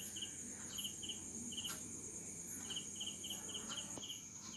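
Crickets chirping faintly in short trills of a few pulses each, repeating every half second or so, over a steady high insect drone.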